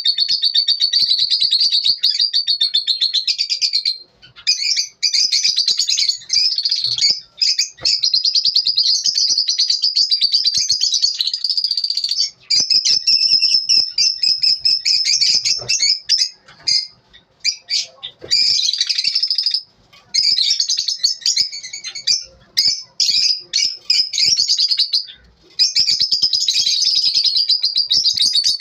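Lovebirds chattering: a dense, high-pitched twittering in long bouts broken by several short pauses.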